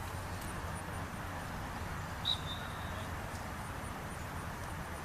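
Steady background noise, with one short, high whistle about two seconds in that starts sharply and then holds one pitch for a moment.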